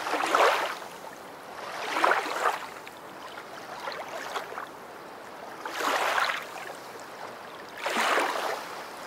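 Ocean waves washing in, a rush of surf that swells and fades about every two seconds.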